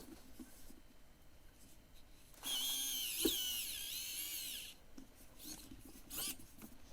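Small electric screwdriver whining for about two seconds as it drives a long screw into an RC car's wheel hub, with a click partway through, then a brief second burst near the end.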